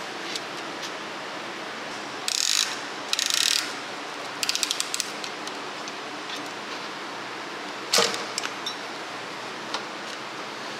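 Hand ratchet wrench clicking in several short runs, with one sharp metal clack about eight seconds in.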